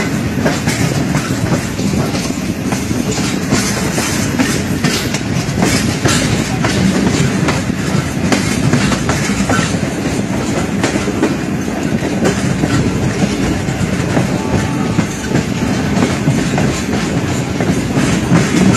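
Passenger coach wheels clattering steadily over the rail joints and points as a train rolls out of a station, heard from an open coach window.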